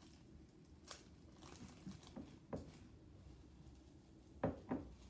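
Light crinkling and small ticks of a plastic packet being handled and its contents shaken into a glass bowl, with two sharper clicks in quick succession near the end.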